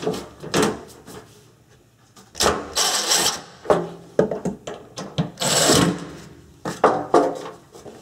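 Handling noises as tools and a refrigerator's metal rear panel are worked on: scattered clicks and knocks, with two longer stretches of scraping and rustling, one a few seconds in and one past the middle.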